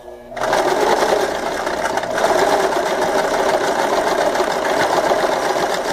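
Domestic electric sewing machine starting about half a second in, then running steadily at speed as it stitches bias binding onto fabric.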